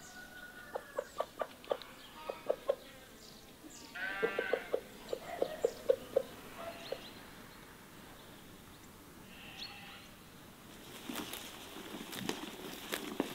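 Farmyard animals: hens clucking in short repeated notes, with one wavering bleat from a goat about four seconds in. Near the end a run of rustling, clicking steps begins.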